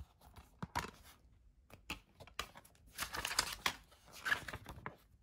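Clear plastic shrink wrap being cut and pulled off a DVD case, crinkling and tearing. A few sharp clicks come about a second in, and denser crinkling follows about three seconds in and again just after four.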